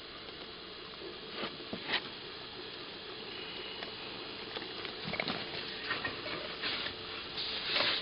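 Steady hiss with scattered light clicks, taps and rubs, the handling noise of things being moved close to the microphone.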